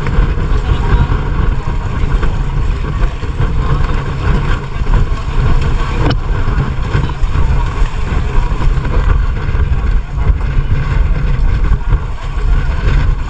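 A boat engine running steadily underway, with wind buffeting the microphone.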